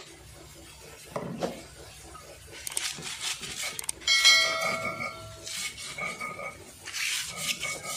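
Stone pestle grinding and crushing chilies with salt against a volcanic stone mortar (cobek) for sambal, in scraping, crunching strokes. About four seconds in, a bright electronic chime sounds for about a second over the grinding.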